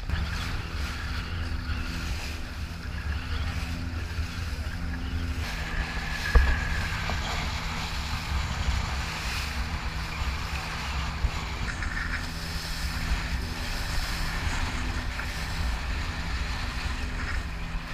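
Outrigger boat's engine running steadily under way, with wind and rushing water over choppy sea. A single sharp thump about six seconds in.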